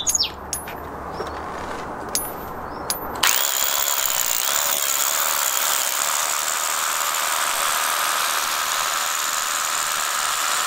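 A cordless SDS rotary hammer with a 12 mm bit starts about three seconds in and runs steadily, hammer-drilling a bolt hole into hard rock.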